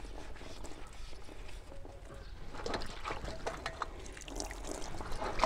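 Hands scrubbing and sloshing the metal mesh and cups of a Massey Ferguson tractor's oil-bath air filter in a steel bowl of cleaning liquid. Small irregular splashes, drips and light knocks of the parts, busier after the halfway point.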